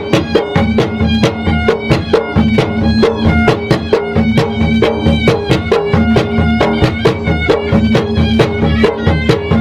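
A traditional Maros gendang ensemble playing: two-headed drums beaten in a fast, driving pattern of many strokes a second, with a reedy, nasal wind instrument holding a sustained droning melody over them.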